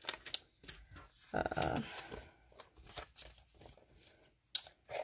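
Scissors snipping through a paper envelope, with the paper rustling and crinkling as it is handled: a string of short sharp snips and clicks, with a louder burst of rustling about one and a half seconds in.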